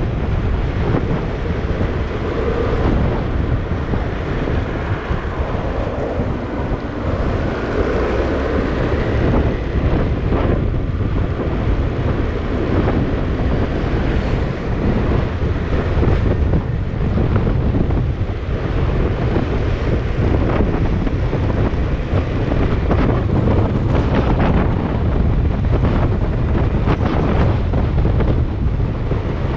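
Steady wind noise buffeting the microphone of a camera on a moving motorcycle, with low road and vehicle rumble beneath and gusts rising and falling.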